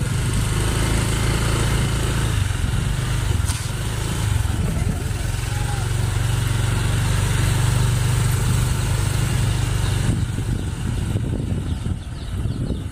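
Motorcycle engine running steadily while riding at low speed, a low steady hum.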